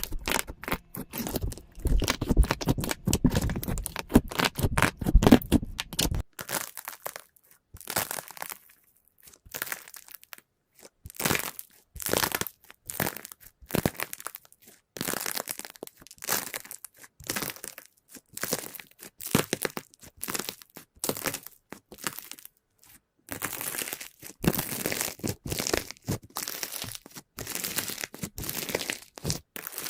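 Slime being squeezed and pressed by hand, giving runs of crackling, popping and crinkling in short spurts with brief pauses between them.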